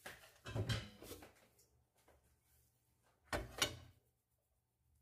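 A spoon scraping and knocking against a nonstick wok as fried rice is stirred and scooped out. There is a cluster of scrapes in the first second and a louder knock and scrape about three and a half seconds in.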